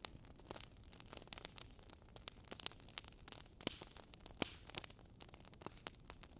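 Faint fire crackling: irregular sharp pops and snaps over a low hiss.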